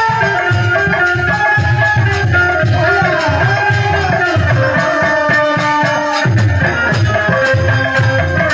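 Live Indian folk devotional music: a drum beating a fast, even rhythm under rattling percussion and held melody notes, accompanying a dance.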